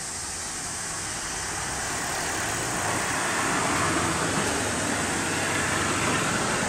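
Seibu 40000-series electric commuter train approaching, its running noise of wheels on rails and motors swelling over the first few seconds, then holding steady.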